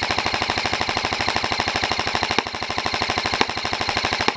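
Airsoft electric gun firing a long full-auto burst: a fast, even rattle of many shots a second that stops suddenly near the end. A couple of louder single cracks stand out in the middle.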